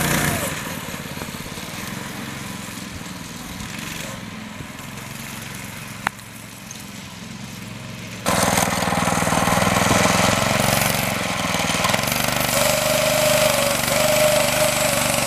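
Small single-cylinder go-kart engine running as the kart drives over grass. The engine sounds distant at first, then is suddenly much louder and closer about eight seconds in.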